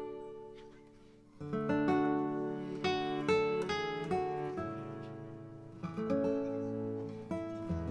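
Background music on acoustic guitar. The notes ring and fade at first, then a fuller strummed chord comes in about a second and a half in, followed by a steady picked melody.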